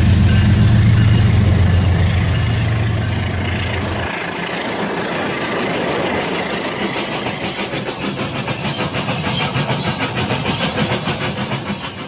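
Toy train running on plastic track: a low engine hum for about the first four seconds stops, then a fast, even clatter of wheels swells as the train passes.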